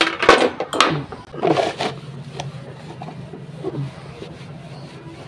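A wet plastic motorcycle mudguard knocking and scraping on a stone floor as it is handled, with the loudest knocks in the first two seconds, then a cloth towel rubbing over the plastic to wipe it dry.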